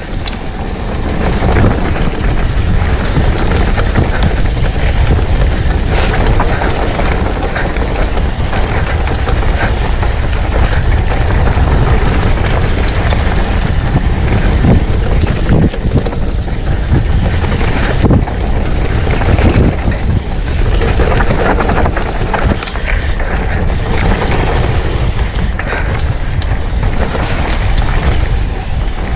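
Wind buffeting the action camera's microphone and mountain bike tyres rumbling over a dirt trail, with frequent knocks and rattles from the bike over bumps.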